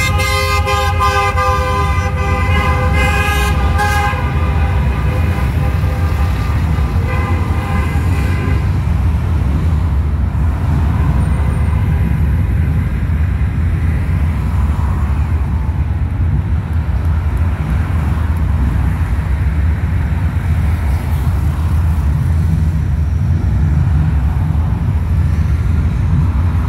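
A vehicle horn held in one long blast of several tones at once, ending about eight seconds in. Passing traffic makes a steady low rumble throughout, with fainter honking later.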